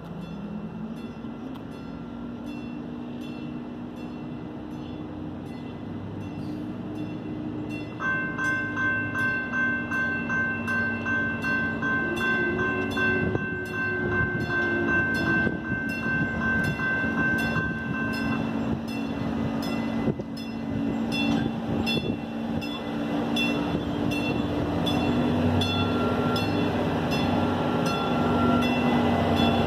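Railroad crossing signal bells ring in a fast, even rhythm starting about eight seconds in, while a Capital MetroRail diesel commuter train approaches, its engine drone growing louder until it passes. A short horn sounds near the middle.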